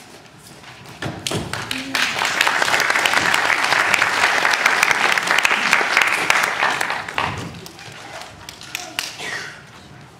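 Audience applauding: clapping swells about a second in, holds for several seconds and dies away.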